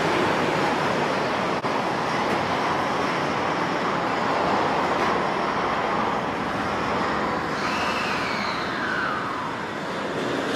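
Steady hum and rush of a suspended monorail train standing at the station platform before departure. About eight seconds in, a short tone rises and then falls away.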